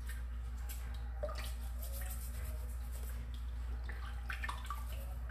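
Water splashing and dripping in a plastic tub as hands work quartz crystals in muddy water and scrub them with a toothbrush: many small, irregular splashes and drips over a steady low hum.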